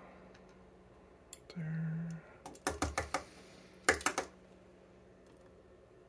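Two quick runs of light, sharp clicks, about a second apart: steel tweezers and small pins from a TESA T80 dimple lock tapping as the pins are set down in a wooden pinning tray.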